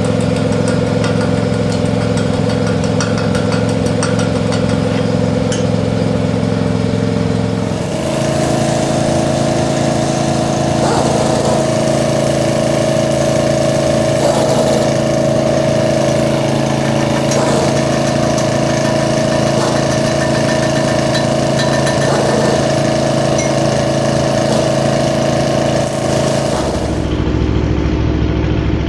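Steady machine hum at an even pitch, changing abruptly to a different pitch twice.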